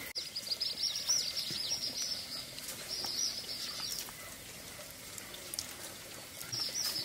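Many small birds chirping and twittering in a busy, high-pitched chorus. The chirping drops away about four seconds in and starts up again near the end.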